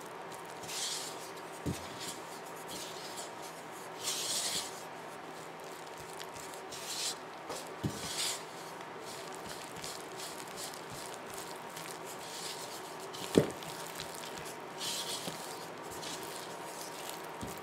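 Spatula stirring flour into mashed-banana batter in a mixing bowl: scratchy scraping strokes through the thickening dough, with a few knocks against the bowl, the loudest about three-quarters of the way through.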